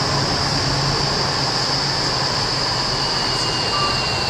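Indoor vertical wind tunnel in operation: a steady rush of air from the tunnel's fans, with a high whine running through it and a fainter second whine joining about three seconds in.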